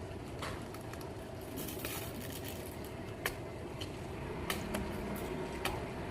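Steady background noise with a handful of short, sharp knocks or clicks at irregular intervals.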